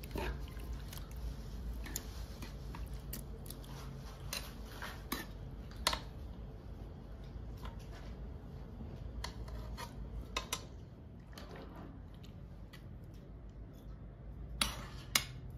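Metal spoon clinking and scraping against a large metal pot and glass jars as mango pickle is spooned into the jars: scattered short clicks, the loudest about six seconds in, about ten seconds in and near the end.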